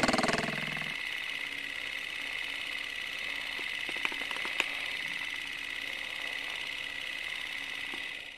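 A steady machine-like hum carrying a high whine. It follows the fading ring of a hit at the start, has two faint clicks near the middle, and cuts off sharply at the end.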